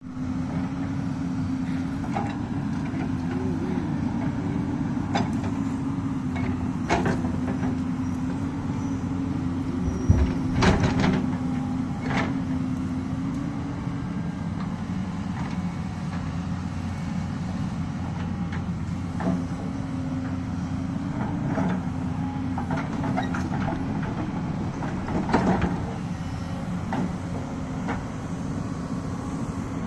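A heavy diesel engine, likely the excavator's, runs steadily with a slightly wavering hum. Scattered sharp knocks and clanks come through it, the loudest about ten seconds in and again near the end.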